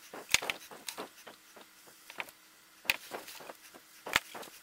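Small clicks and knocks of hands handling a metal engine heater body and a tube of sealant on a workbench, with three sharper knocks: about a third of a second in, near three seconds, and just after four seconds.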